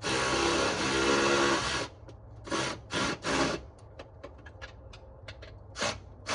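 A ratchet wrench tightening the battery hold-down: a long run of rapid ratchet clicking for about two seconds, then several short bursts of clicking with small ticks between them as the ratchet is worked back and forth.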